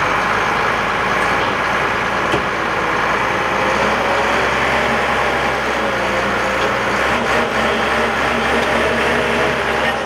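Heavy diesel engine of a Shantui crawler bulldozer running steadily at close range, its pitch rising and falling slightly midway.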